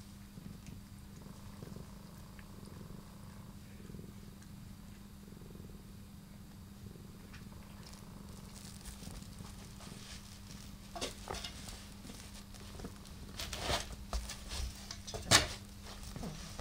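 Cat purring steadily. From about halfway a soft rustle of fur and licking joins it as one cat grooms the other, and in the last few seconds come scuffles and knocks on the rush mat as the two cats tussle, the loudest a sharp knock near the end.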